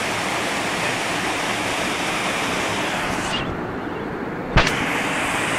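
Water rushing over a river weir: a steady, loud rush of white noise. About three seconds in the hiss turns duller, and a single sharp knock sounds near the end.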